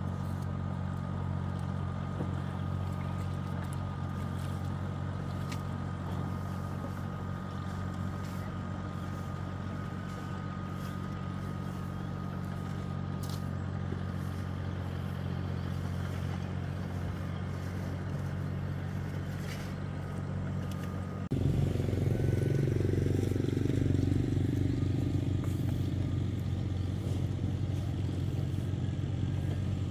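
An engine running at a steady speed. About two-thirds of the way through the sound changes suddenly and gets louder.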